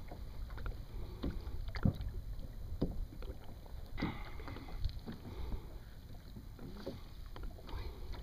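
Water slapping against a kayak hull, with light irregular knocks or splashes about once a second over a low steady rumble.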